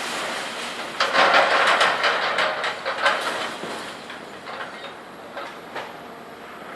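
Front loader crashing and banging through scrap metal: a dense run of metallic clatter and bangs starting about a second in, loudest for about two seconds, then thinning to scattered clanks.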